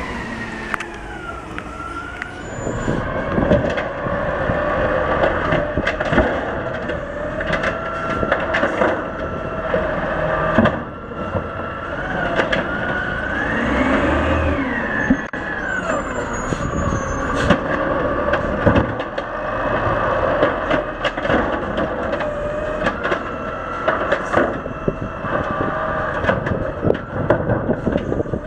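Automated side-loader garbage truck running and pulling forward to the next bins, its engine and drivetrain giving a whine that rises and falls, once near the start and again about halfway through, over steady running noise and occasional clunks.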